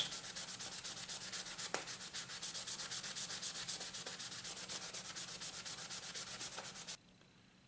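150-grit sanding block rubbed by hand over a knife handle's walnut scales and brass in quick, even back-and-forth strokes, with one light click about two seconds in. The sanding cuts off abruptly about seven seconds in.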